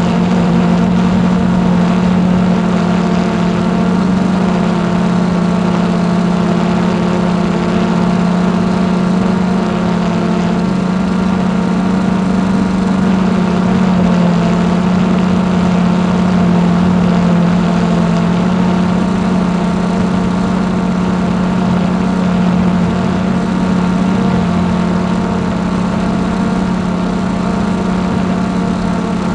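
Hubsan X4 Pro H109s quadcopter's motors and propellers buzzing in flight, a loud steady hum picked up by the drone's own onboard camera.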